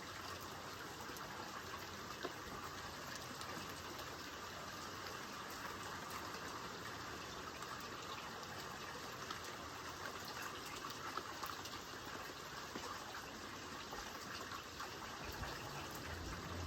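Steady rain falling: an even hiss of rain with scattered drops ticking.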